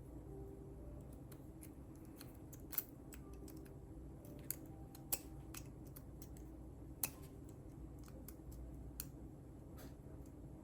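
Small, irregular metal clicks from a lock pick and tension wrench working the pins of a five-pin pin-tumbler lock, with a few sharper ticks among them.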